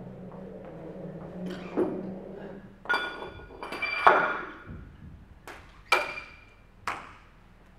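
Iron weight plates being slid and knocked onto a barbell sleeve: a series of about seven sharp metallic clinks, each with a brief ring.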